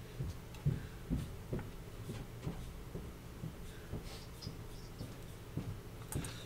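Faint, irregular taps and knocks, about two a second, as a soldering iron tip is worked along the pins of a surface-mount chip on a laptop motherboard, over a steady low hum.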